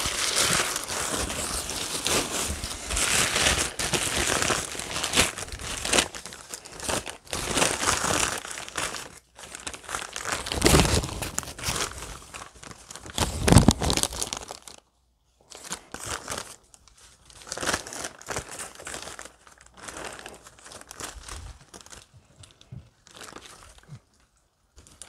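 Crumpled newspaper packing rustling and crinkling as hands rummage through it in a cardboard box and pull out and unfold a sheet. The crinkling is dense for the first half, then comes in sparser bursts after about fifteen seconds.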